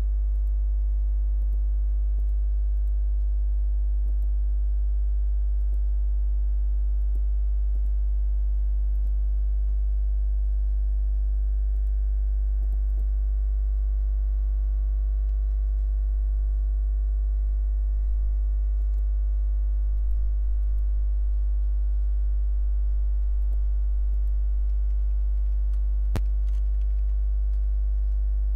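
Steady electrical mains hum with a buzz of many overtones, unchanging throughout, and a single sharp click about 26 seconds in.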